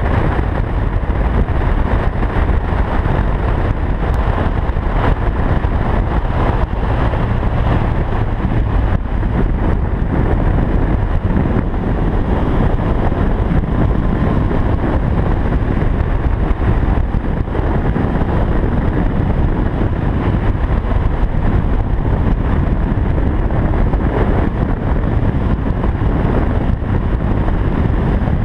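2013 Honda CB1100's air-cooled inline-four engine running steadily at road speed, mixed with wind rushing over the bike-mounted microphone.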